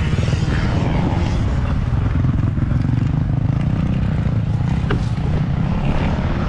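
Honda dirt bike engine running steadily, heard close up, with one sharp tick about five seconds in.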